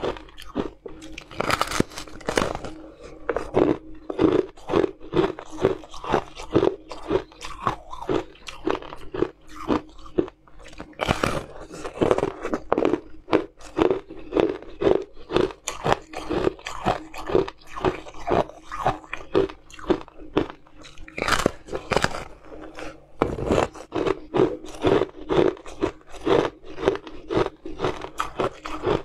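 Crunching of a block of blue-coloured frozen ice being bitten and chewed, in quick, irregular crunches a few times a second. A faint steady hum sits underneath.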